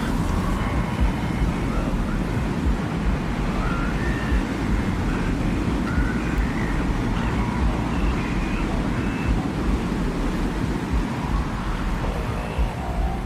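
Designed desert wind ambience: a steady, deep blowing wind, with faint short tones drifting above it now and then.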